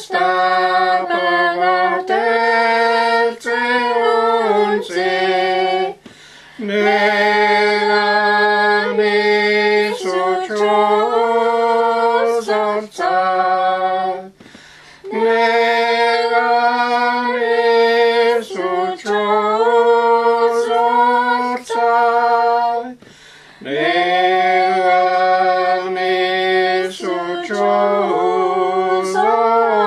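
Unaccompanied hymn singing in the Dakelh (Carrier) language, with a woman's voice prominent, in long held phrases broken by three short pauses.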